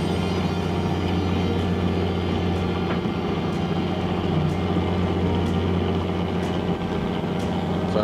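Steady low hum of a fishing boat's onboard machinery running continuously, with a few faint ticks.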